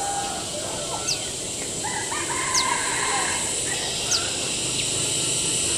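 Rooster crowing, drawn-out calls that rise, hold and fall, over a steady high buzz of insects. A short thin high chirp repeats about every second and a half.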